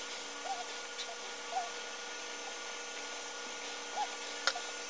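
Small clicks of a plastic plug insert and wires being handled, with one sharp click about four and a half seconds in, over a steady background hiss and hum with faint short chirps.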